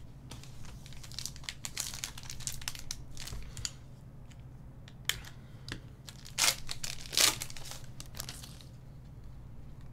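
Foil wrapper of a 2019-20 Panini Select basketball card pack crinkling and tearing as it is ripped open by hand. Sharp crackles come in irregular bursts, with the loudest crinkles a little past the middle.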